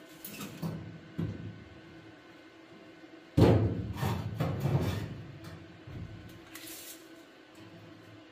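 Metal handling noise on a bare steel car body shell: a few knocks, then about three seconds in a loud, rough scraping clatter of sheet metal lasting about a second and a half, with a few light knocks after.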